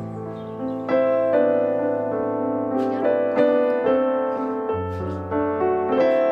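Background piano music: a gentle melody over sustained bass notes.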